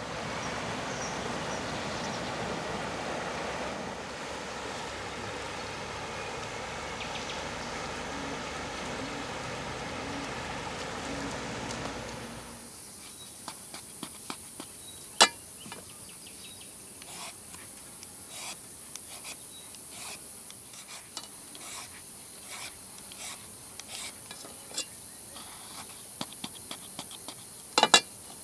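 Outdoor cooking and food-handling sounds: rubbing and handling noise at first, then, after an abrupt change about halfway, a steady high hiss with many small crackles and clicks. Two sharp knocks stand out, one midway and one near the end.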